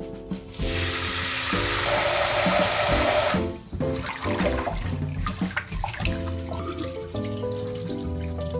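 Tap water running into a rice cooker's inner pot of uncooked rice for about three seconds, then stopping. A hand then swishes and rubs the rice in the water with irregular splashing, washing the grains.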